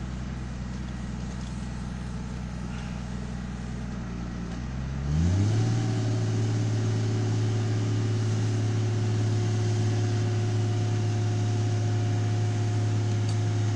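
Utility digger-derrick truck's engine running steadily, then speeding up about five seconds in and holding at a higher, steady speed to drive the boom's hydraulics as the winch hoists a transformer.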